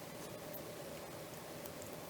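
Steady background hiss with a faint steady hum, and a few faint light clicks of small parts being handled.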